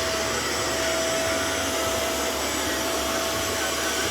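Hoover SmartWash carpet washer running: a steady motor whirr with a constant whine in it.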